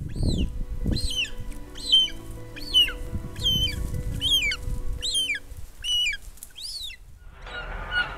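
Short-toed snake eagles calling at the nest: a run of about nine loud whistled calls, each rising then sliding down in pitch, roughly one every 0.8 s, over a low rumble. Music comes in near the end.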